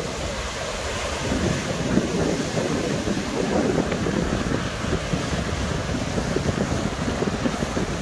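Wind buffeting the microphone in uneven gusts, over a steady wash of surf breaking on the beach.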